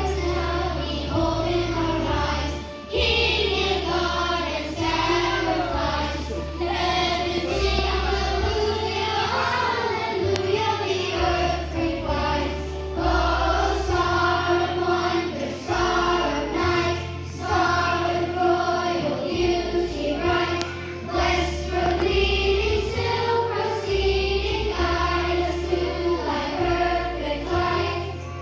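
A group of children singing a song together over musical accompaniment with a bass line that changes note every second or two.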